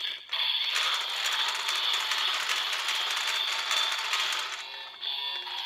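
Crank handle of a DX Evol Driver toy transformation belt being turned, its ratchet and gears giving a dense, rapid clicking for about four seconds before stopping near the end.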